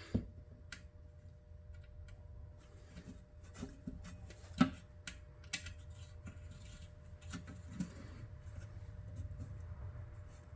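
Screwdriver turning small oiled screws into the chronometer's case: scattered light clicks and scrapes, with two sharper knocks, one right at the start and one a little under five seconds in.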